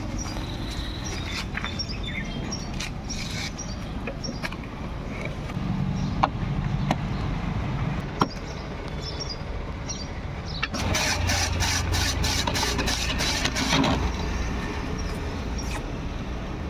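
Hand-cranked gola ice-shaving machine shaving a block of ice: a rhythmic scraping, about three strokes a second, for roughly three seconds past the middle. Before it, a few sharp metal clicks as the machine is set, over a steady low rumble of street traffic.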